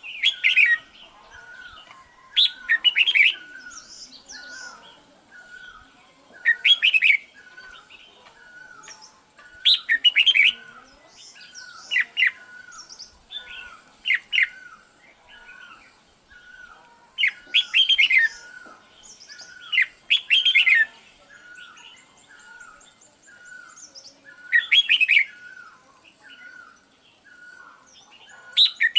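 Red-whiskered bulbul calling: short bursts of loud chirping whistles every two to four seconds, with a softer, lower note repeated steadily in between.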